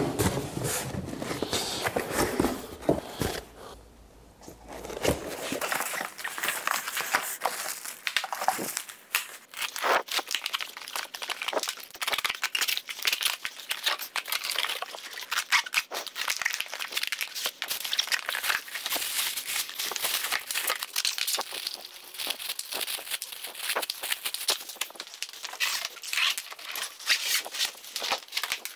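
Cardboard boxes and packing material being handled and unpacked: rustling and crinkling with many small knocks and scrapes, with a brief quieter pause about four seconds in.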